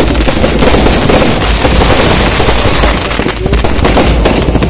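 Fireworks and firecrackers going off at close range, loud: a dense, unbroken crackle of rapid bangs.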